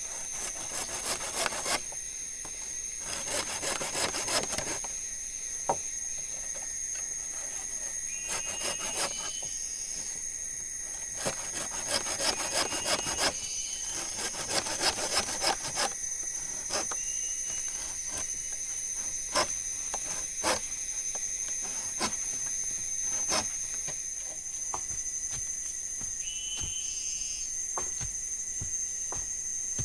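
Wood being sawn by hand, in several runs of quick back-and-forth strokes with pauses between, then a few single knocks. A steady high insect drone runs underneath, with a few short chirps.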